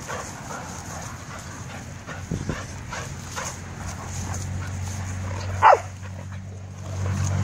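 Dogs playing, with one short, high yelp a little over five seconds in that slides down in pitch, and a low steady drone that builds and grows louder near the end.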